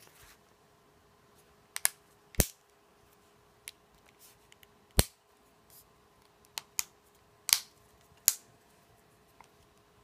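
Plastic clips of a Samsung Galaxy S4's rear frame snapping into place as it is pressed onto the phone: about ten sharp, short clicks at irregular intervals, the loudest about halfway through.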